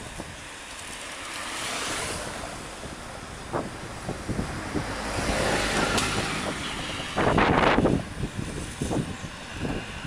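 Wind buffeting the microphone over road noise, with vehicles swelling past about two seconds in and again around five to seven seconds, and a stronger gust near the end.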